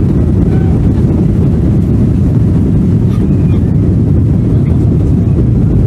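Boeing 737 airliner on its takeoff roll, heard from inside the cabin: jet engines at takeoff thrust and wheels rumbling on the runway as one loud, steady low rumble.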